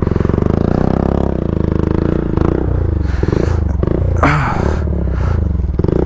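Dirt bike engines running with a steady pulsing note, then revved up and down with the throttle. There are two brief scraping noises, about four and six seconds in.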